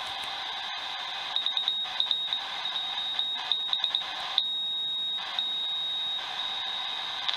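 Shortwave receiver on 18.110 MHz picking up an International Beacon Project beacon through band hiss: a high-pitched Morse callsign, then three long, steady dashes, each a little weaker than the one before, which are the beacon's stepped-down power levels.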